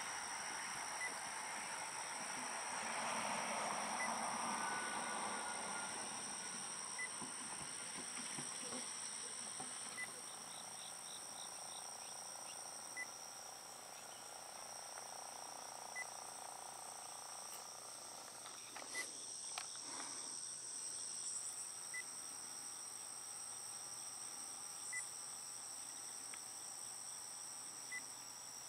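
Insects trilling steadily at two high pitches, with a faint tick about every three seconds. In the first few seconds the rush of the passing Auto Train's last car fades away.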